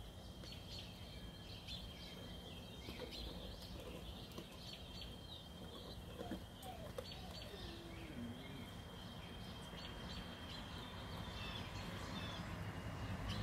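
Faint outdoor background: scattered short bird chirps over a low steady rumble, with a thin, steady high tone running underneath.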